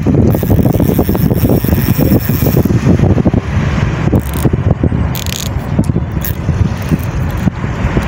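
Wind buffeting the phone's microphone: a loud, uneven low rumble.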